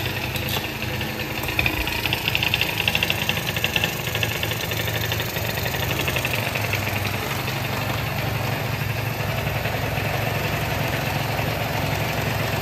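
Honda Dio AF34 scooter's small single-cylinder two-stroke engine idling steadily. It now runs after failing to start, a fault the mechanic puts down to a fuel blockage.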